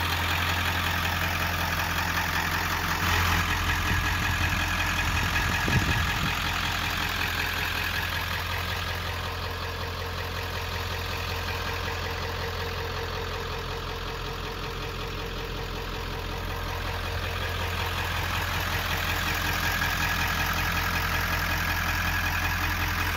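Ford 7.3L Power Stroke turbodiesel V8 idling steadily: a low, even hum with a fast, regular diesel clatter over it.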